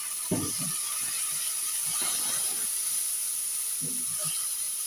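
Black nylon slotted spatula scraping and stirring fried onions and ginger-garlic paste around a pan, with a sharp knock of the spatula about a third of a second in. Hot oil sizzles steadily underneath.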